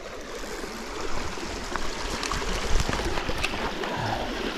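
A stream running steadily past a trout pool, a constant rush and trickle of flowing water, with a few brief ticks on top.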